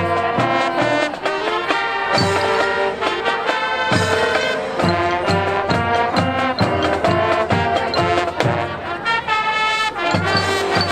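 Marching band playing: brass (trombones, trumpets) carrying the melody over a steady drum beat.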